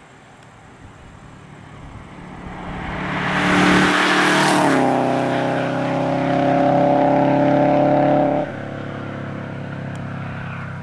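Bug-eye Subaru WRX's turbocharged 2.0-litre flat-four driving past fast: it builds as the car approaches, peaks with a rush of tyre and wind noise as it passes, and drops in pitch. The engine then holds a steady note going away, which falls off sharply about three-quarters of the way through, leaving a quieter, steady engine sound.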